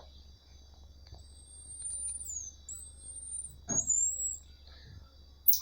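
Marmosets giving long, thin, high whistled calls: three whistles of about a second each, the first falling away at its end. A steady high insect drone runs underneath, and a soft knock comes with the third whistle.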